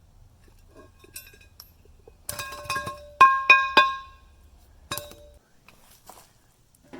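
Metal parts clanking and clinking together, each hit ringing with a clear pitch. There is a cluster of clinks about two seconds in, then three loud ringing strikes in quick succession, and one more clank about five seconds in.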